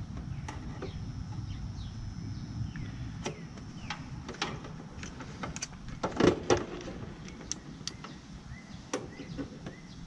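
Scattered light clicks and knocks of tools and multimeter test leads being handled, over a low rumble; the loudest knocks come about six seconds in.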